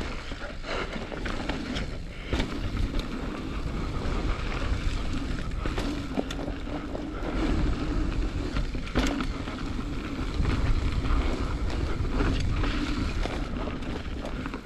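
Transition Patrol mountain bike ridden down a dirt trail: tyres rolling over dirt and rock, with repeated knocks and rattles from the bike over bumps, under steady wind buffeting on the microphone.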